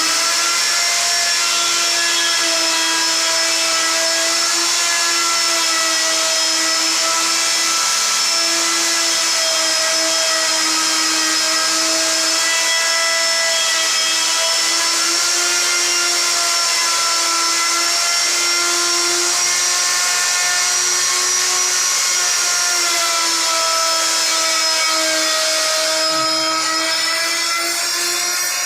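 Router motor running at full speed with a steady high whine, its pitch dipping slightly now and then as it cuts a hinge recess in wood. It starts to wind down at the very end.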